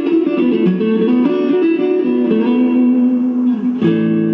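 Background music: an electric guitar plucking a melody.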